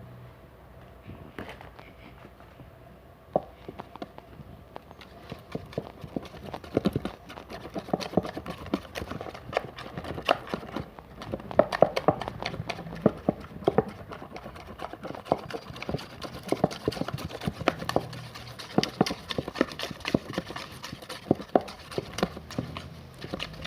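Slime being worked: sticky, squelching clicks and pops come fast and irregularly, starting about five seconds in.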